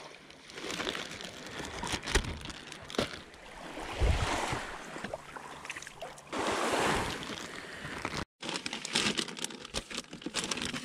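Small waves washing up the shore and water sloshing as pieces of squid are rinsed in the shallows, with the crinkle of a plastic bag. After a cut about eight seconds in, a run of clicks and knocks from gear being handled.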